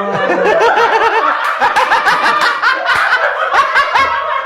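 Several people laughing loudly together, their laughs overlapping.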